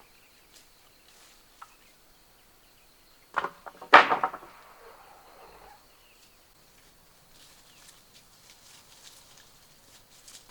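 A sharp knock, then about half a second later a louder knock that breaks into a rattling clatter lasting about a second and a half, over a faint background of small scattered ticks.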